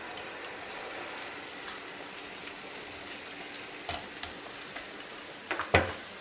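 Sliced ginger sizzling in sesame oil in a nonstick frying pan, sautéed until fragrant, with a steady frying hiss. A silicone spatula turns the slices, giving soft scrapes and taps, a few louder ones near the end.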